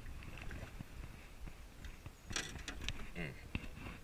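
Handling noise as a hooked bass is lifted out of the water and into an aluminum boat on the fishing line. A cluster of sharp clicks and knocks comes about two to three and a half seconds in.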